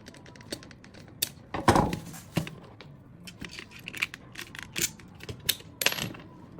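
Clicks and knocks of small hard objects being handled, with a louder thump a little under two seconds in.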